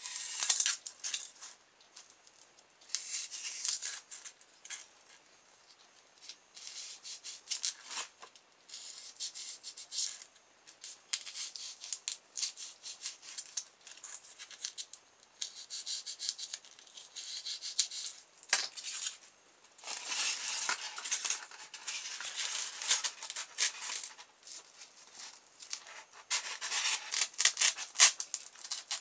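A sharp knife cutting and sawing through polystyrene packaging foam, in repeated bursts of rapid scraping strokes with short pauses between them.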